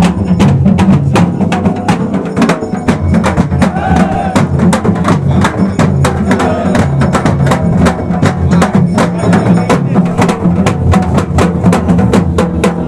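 Traditional Himachali procession drumming: a fast, steady beat of about four strikes a second over a sustained low drone.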